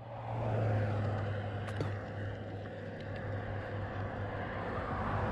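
Steady low rumble of wind on the microphone and tyre noise from a bicycle rolling on a paved road, with a few faint ticks.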